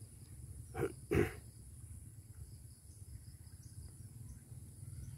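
Steady high-pitched chirring of insects over a low steady rumble, with two short rough sounds close together about a second in, the second one louder.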